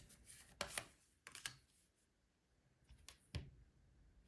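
A few faint, brief clicks and taps against near silence, like tarot cards being handled and laid on a table: two in the first second, a couple more around one and a half seconds, and one near the end.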